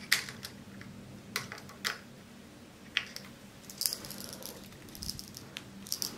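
Irregular small clicks and taps of a precision screwdriver working the small screws of a Polemaster camera's mounting adapter, a handful of sharp ticks scattered over several seconds.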